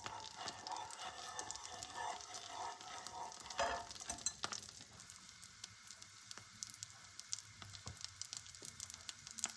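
Butter sauce sizzling and crackling in a pan as it is stirred with a whisk, with scraping strokes in the first few seconds.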